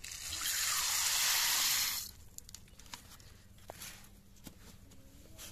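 Dry split lentils poured into a steel bowl of water, a rushing hiss of grains striking the water for about two seconds, then a few faint ticks.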